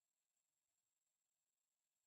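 Near silence: only a faint electronic hiss.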